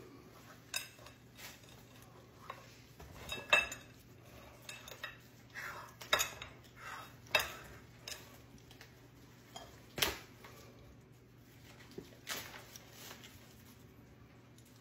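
Hands pressing and blotting freshly rinsed homemade butter in paper towels on a ceramic plate: paper rustling with scattered, irregular clinks and knocks of the plate, the sharpest about ten seconds in.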